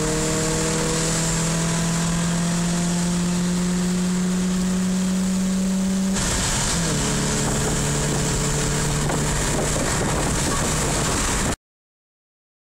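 Ford Focus 1.8 four-cylinder engine with a sport air filter running, its pitch climbing slowly and steadily. About six seconds in the pitch drops abruptly and it runs on steady at a lower pitch, then the sound cuts off a second before the end.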